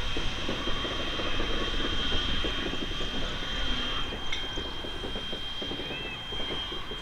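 Steam locomotive W934 moving slowly with a busy low rumble and clanking, and a steady high-pitched whine held throughout.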